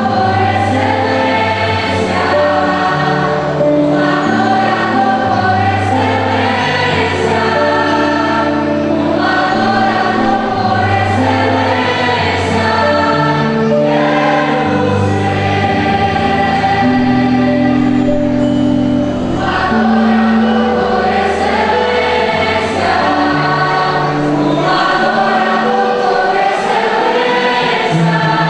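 Choir singing a gospel song with band accompaniment: a bass line moving under the voices and a regular beat.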